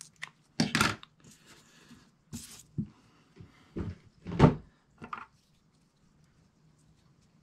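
Scissors snipping through paracord, with several short knocks as the scissors and a lighter are handled on the table. The loudest knock comes about four and a half seconds in, and it goes quiet after about five and a half seconds.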